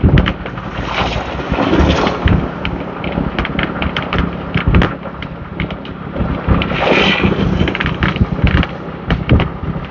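Ride-along sound from a moving motorbike: wind buffeting the microphone over the steady hum of the engine, with frequent sharp rattles and clicks.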